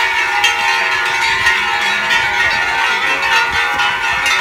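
Hand-held bamboo-tube fireworks (tezutsu hanabi) spraying sparks with a continuous loud hiss and crackle, under a layer of steady ringing tones.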